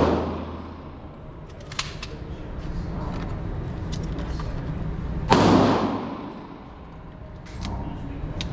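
Gunshots in an indoor range: one loud shot right at the start and another about five seconds in, each ringing out in a long echo off the range walls. Fainter sharp clicks come between them.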